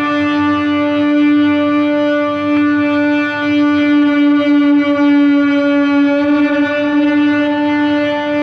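Electric guitar string sustained by an Ebow: one long note held at a steady pitch, without the fading of a plucked note.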